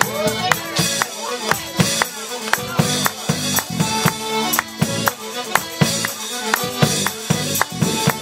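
Live folk band playing a tune: melodeon, tuba and bass guitar over a steady beat of drums and hand percussion.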